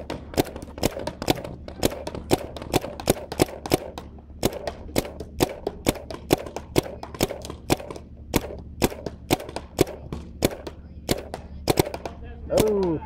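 Dye M2 electropneumatic paintball marker firing shot after shot, each a sharp pop, about two to three a second. The air tank is running low, so the shots are getting weaker.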